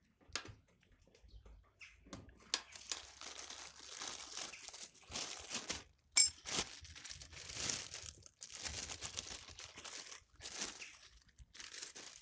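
Clear plastic packing bag crinkling and rustling in irregular bursts as hands rummage through it among the loose parts, with one sharp click about six seconds in.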